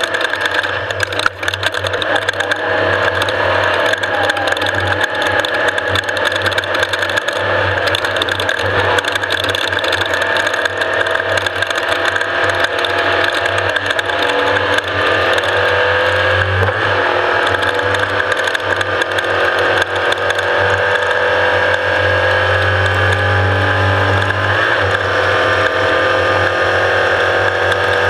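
Off-road race vehicle running at speed, its engine note slowly rising and falling under a continuous mechanical rattle and a steady high whine.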